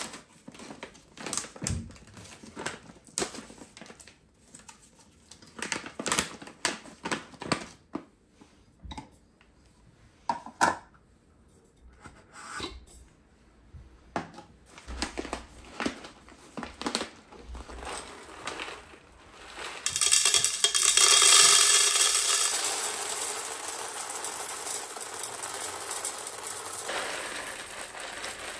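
Crinkling and light clicks as a coffee bag and a storage canister's lid are handled, then whole coffee beans poured from the bag into the canister: a steady rattling rush that starts about two-thirds of the way in, loudest at first and slowly tapering.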